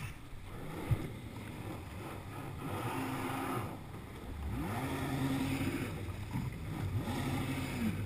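Kawasaki jet ski engine running low, revving up about four and a half seconds in, holding a higher steady note, then easing off near the end.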